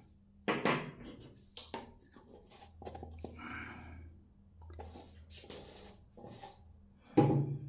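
Shaving-soap tub and a small spatula being handled: a string of light knocks and clicks with some scraping, the loudest knocks about half a second in and near the end.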